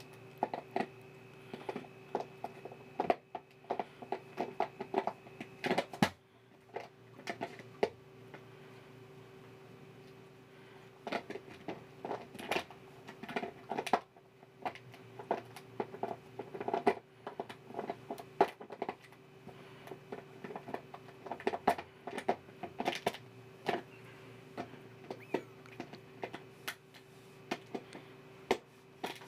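A husky gnawing on the neck and cap of a plastic soda bottle: irregular runs of clicking, crackling plastic, with short pauses, over a faint steady hum.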